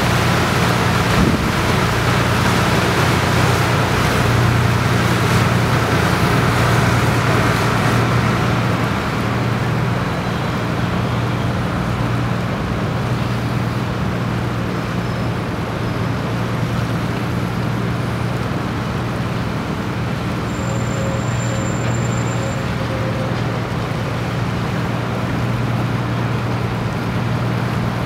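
A motor boat's engine running steadily under way, a constant low hum. For the first several seconds it echoes louder and noisier under a bridge, then settles as the boat comes out into open river.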